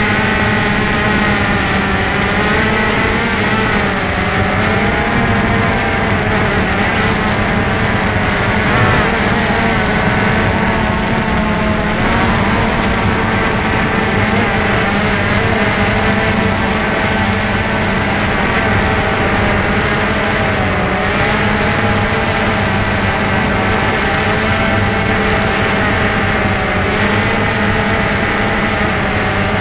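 DJI Phantom 2 quadcopter's electric motors and propellers whining steadily, heard from the camera mounted on the drone; the pitch wavers up and down as the throttle changes.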